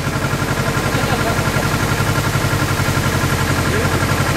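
Tour boat's engine running steadily, an even low pulsing drone heard from on board.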